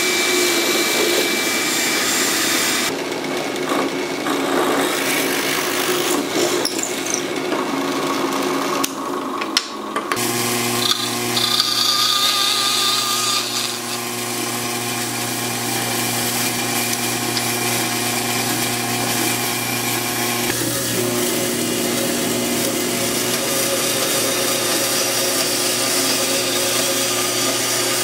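Woodworking power tools working wood, changing abruptly several times in the first ten seconds. From about ten seconds in, a power tool's motor runs with a steady hum under continuous machining noise.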